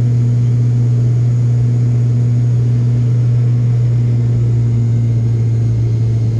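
Steady drone of an airliner's engines heard inside the passenger cabin during the climb just after takeoff, a loud low hum.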